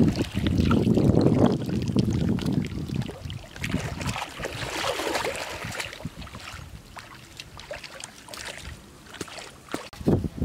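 Shallow muddy water sloshing and splashing as people wade and scoop with woven baskets, with wind rumbling on the microphone for the first couple of seconds. A spattering stretch of splashes comes about halfway through, then it quietens.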